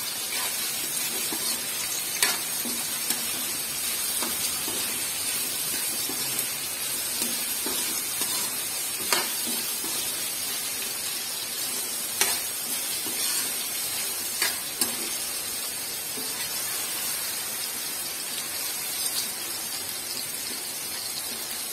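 Ground beef and strips of carrot and bell pepper sizzling steadily in oil in two steel woks, stirred with a metal spoon that gives a few sharp clinks against the pan.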